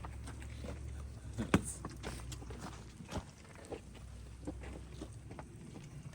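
Scattered light knocks and clicks, one sharper about one and a half seconds in, over a low steady hum that fades out about three seconds in.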